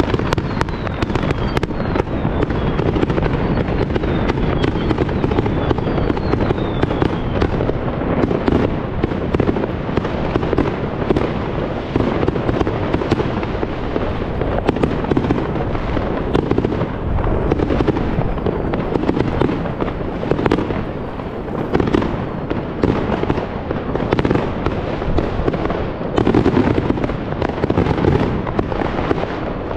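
Fireworks going off without a break: a dense din of bangs and crackling, with a few whistles falling in pitch in the first several seconds.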